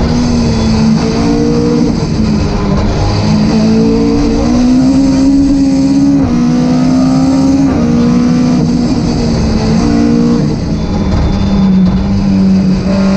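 Rally car engine heard from inside the cockpit, running hard under load. Its note climbs and drops back every second or two as the car is driven through the gears, settling to a lower note near the end.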